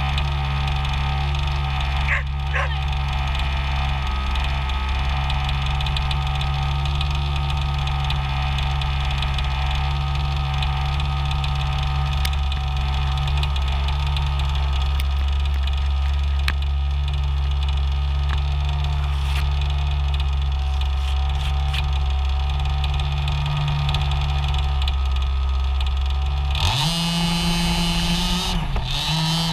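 Small two-stroke gas engine of a Losi 5ive-T 1/5-scale RC truck idling steadily, then revving up suddenly near the end as the truck accelerates away.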